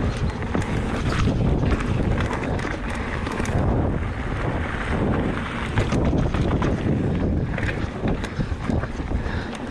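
Electric mountain bike riding fast down loose gravel singletrack: wind buffeting the camera microphone over the rumble of knobbly tyres on stones, with a steady stream of small clicks and rattles from the bike and trail.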